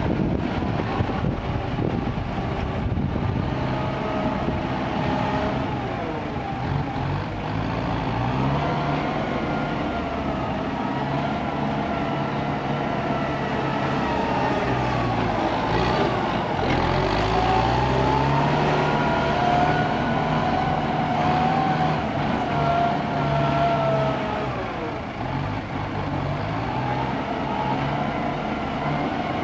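Diesel engines of heavy ten-wheel dump trucks running and revving, their pitch rising and falling again and again, as one truck works to pull a second truck out of the mud on a tow line.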